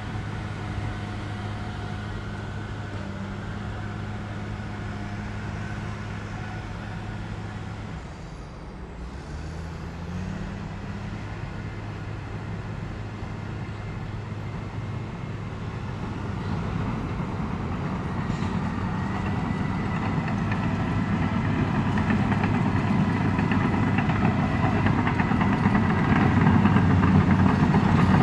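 Bulldozer's diesel engine running steadily, dipping and shifting pitch about eight seconds in, then growing louder and rougher through the second half.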